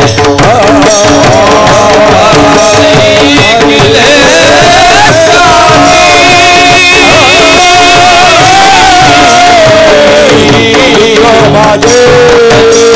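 Devotional abhang singing: a voice drawing out a long wordless melismatic line with held, wavering notes, over a steady hand-drum rhythm.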